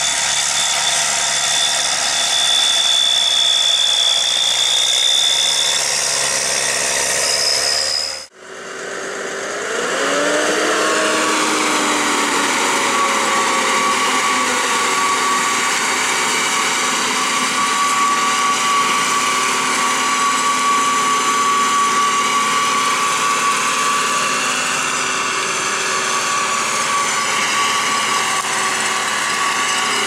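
New Holland tractor diesel engines running. About eight seconds in, the sound cuts off abruptly and switches to a second tractor, whose engine revs up with a rising tone and then runs on with a steady high whine.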